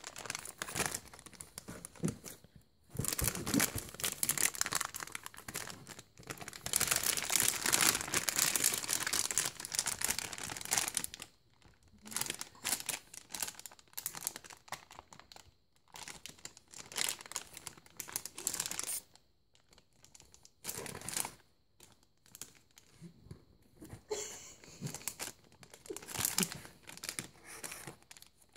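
A baby crinkling a foil-lined plastic snack bag in her hands. The crinkling runs almost without a break for several seconds, then comes in shorter bursts with pauses between.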